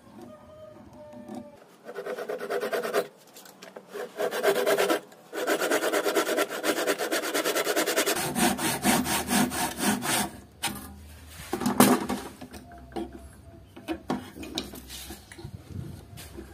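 Hand saw cutting into a wooden saw handle in quick back-and-forth strokes, in three spells with short pauses, then stopping; a sharp knock and a few small handling clicks follow near the end.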